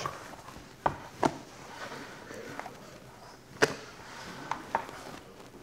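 Hands stretching and folding a wet sourdough dough, with a handful of light knocks and taps, the sharpest about three and a half seconds in.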